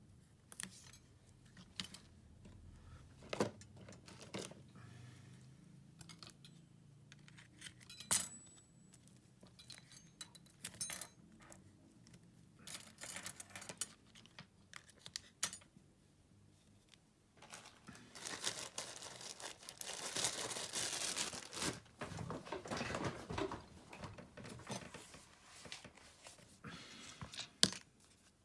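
Small tools and parts clicking, tapping and scraping against a Samsung Galaxy M31s smartphone as it is taken apart, with a longer stretch of dense scraping and rustling about two-thirds of the way in.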